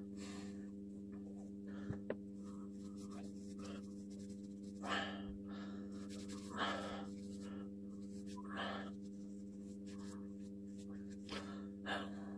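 A steady low hum, with a person's breaths puffing into the microphone several times.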